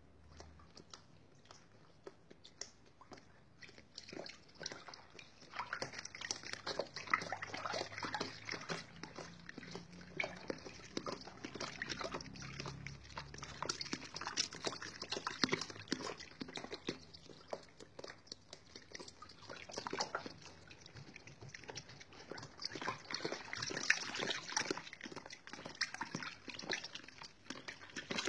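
Foamy water sloshing and splashing in irregular bursts, with animal-like whimpering sounds mixed in.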